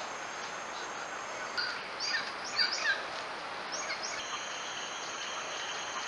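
Rainforest ambience: a dense, steady insect drone with high buzzing tones. In the middle, a bird gives a run of about six short call notes.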